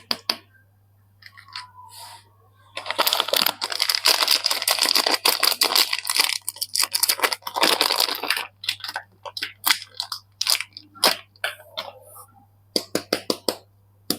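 Soap packaging being torn open and crinkled by hand: a long stretch of dense tearing and rustling through the middle, with sharp crackles and clicks before and after it.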